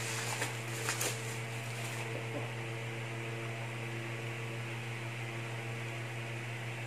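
Plastic bubble wrap crinkling and crackling as a box is pulled out of it, with a few sharp clicks in the first two seconds. After that only a steady low hum is left.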